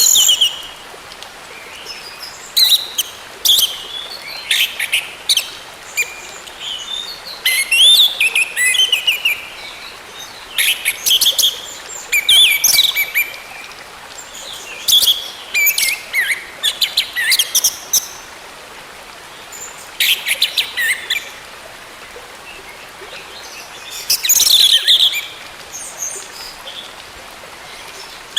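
Orange-headed thrush singing in bursts of rapid, varied whistled and chattering phrases, separated by short pauses, with a longer pause about three quarters of the way through. A steady faint hiss runs underneath.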